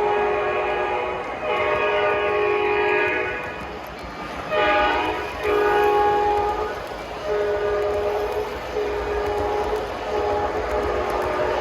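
Three-rail O gauge model locomotive's horn sound blowing a string of blasts: long, long, short, long (the grade-crossing signal), then several more blasts of about a second each, with the train running underneath.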